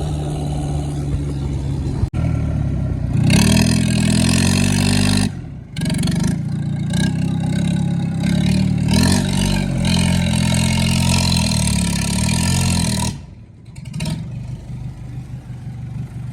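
Modified tractor's diesel engine running loud: it is revved hard for about ten seconds with a brief dip partway through, then drops back to a quieter idle near the end.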